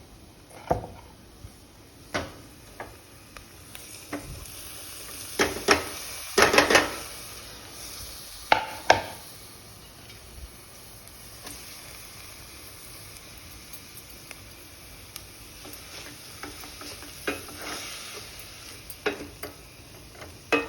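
Chopped fenugreek microgreens being stir-fried with onion and green chilies in coconut oil: a utensil stirring, scraping and knocking against the pot over a soft sizzle. The knocks are busiest from about five to nine seconds in.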